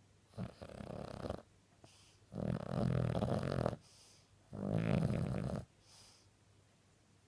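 A dog snoring loudly in its sleep: three long snores about two seconds apart, the second and third louder than the first.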